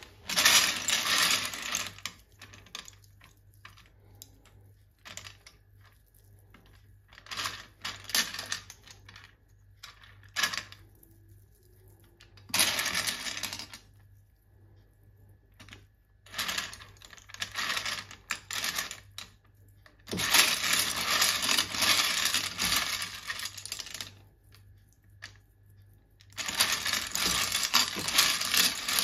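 Dry penne pasta clicking and clattering against a ceramic baking dish as hands mix chopped ham into it. It comes in about eight bursts of one to three seconds, with short pauses between.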